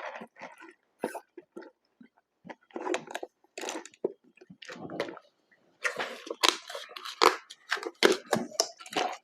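Close-miked chewing and crunching of McDonald's food: a run of short, irregular crunches and chews that get busier in the second half.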